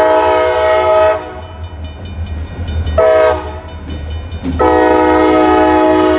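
CSX diesel freight locomotives passing at a grade crossing, their multi-note air horn sounding over the steady low rumble of the engines. A long blast ends about a second in, a short blast comes about three seconds in, and another long blast starts near the end: the long-long-short-long crossing signal.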